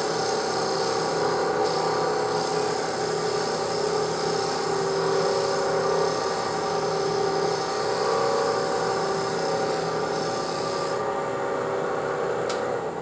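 A maple offcut pressed against a wood spindle turning fast on a lathe: a steady friction rubbing with a whine, the wood heating until it burns a dark band into the turning. The rubbing stops near the end.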